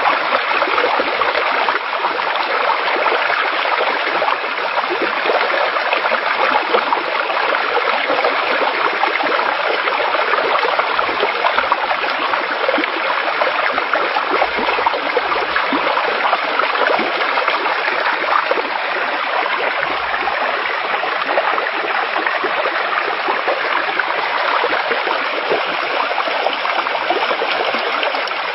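Floodwater rushing in a steady torrent through a breach in a railway embankment, washing out the ground beneath the track.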